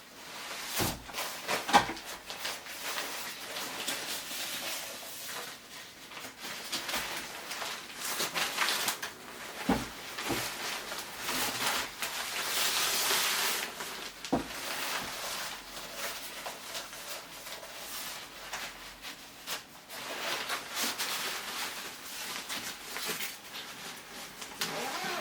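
Packaging being handled while a pop-up green screen is unboxed: rustling and scraping with occasional sharp knocks, the loudest about two seconds in and a longer stretch of rustling around the middle.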